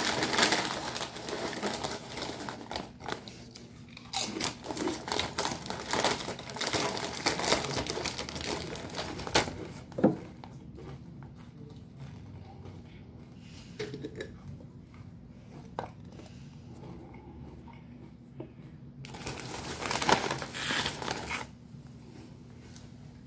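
Plastic chip bag crinkling and rustling as it is handled and opened. About ten seconds in there is a single sharp click, then a quieter stretch, then a second short burst of crinkling near the end.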